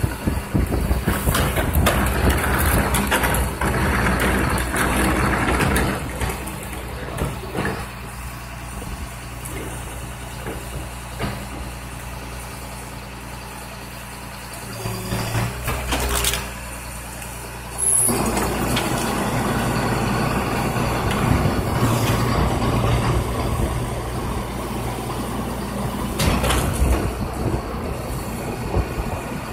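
Rear-loader garbage truck's diesel engine running as a wheeled cart is tipped and emptied into the hopper. About 18 seconds in, the engine revs up and the hydraulic packer blade runs its compaction cycle, which goes on to the end.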